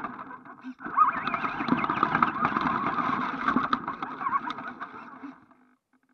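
ECX AMP RC truck's electric motor and gear drivetrain whining as it drives over grass, the pitch rising and falling with the throttle, with rattles and knocks as it bounces along. It slows and dies away to a stop about five and a half seconds in.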